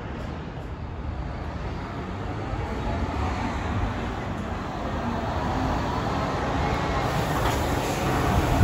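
V/Line coach's diesel engine running as the coach drives in and pulls alongside, growing steadily louder as it approaches.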